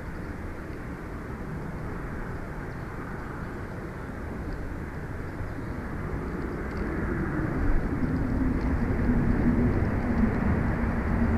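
Steady low rumbling noise that grows louder, with a low hum coming in about halfway through.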